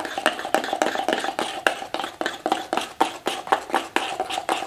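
A utensil stirring briskly in a container, clicking against its sides about six or seven times a second, as water is mixed into a graphite-and-molybdenum forge-lube paste to thin it out.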